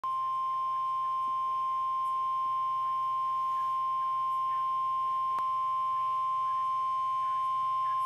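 Midland weather alert radio sounding the NOAA Weather Radio warning alarm tone, a single steady 1050 Hz beep held unbroken, the alert that a tornado warning has been issued.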